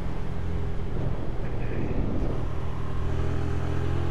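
Hyosung 250cc V-twin motorcycle engine running steadily under way, heard from the bike's own camera with wind and road noise over it.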